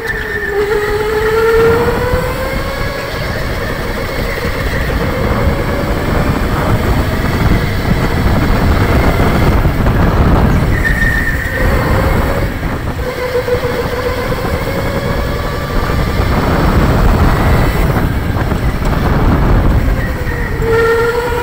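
Electric go-kart's motor whining as it is driven at pace. The whine rises in pitch as the kart accelerates and fades as it slows for corners: it climbs in the first few seconds, comes back around halfway, and again near the end. Underneath is a heavy, steady rumble of tyres and chassis.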